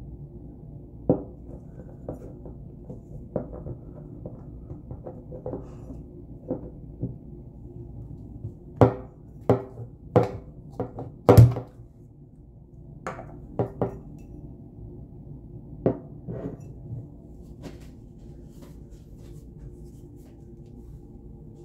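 Hard plastic bottle parts handled and set down on a stone countertop: a series of sharp taps and knocks, scattered at first, thickest and loudest around the middle, then sparser. A steady low hum lies underneath.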